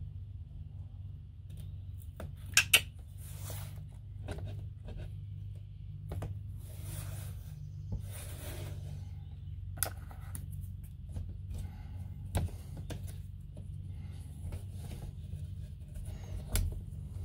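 Hand handling noises at a sliding motorhome window while an adhesive strip is pressed onto its slide bar: a few sharp clicks and taps on the glass and frame, the two loudest close together about two and a half seconds in, with light rubbing between, over a steady low hum.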